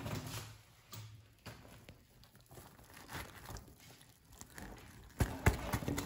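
Mesh fish net rustling and crinkling as it is handled, with scattered faint clicks. The handling gets louder and busier about five seconds in.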